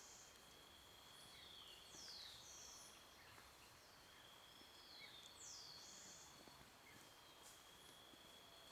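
Faint forest ambience: a steady high insect drone, and a short pair of high falling whistles repeated about every three seconds from an animal that cannot be named.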